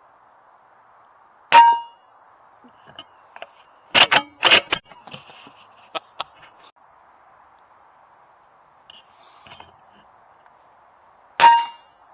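Two shots from an AGT Uragan 2 sub-12 air rifle, about ten seconds apart, each a sharp crack with a short metallic ring. Between them comes a quick run of clicks and knocks, over steady faint hiss.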